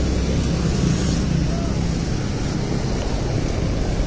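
Steady roadside traffic noise, a constant low rumble with no single event standing out.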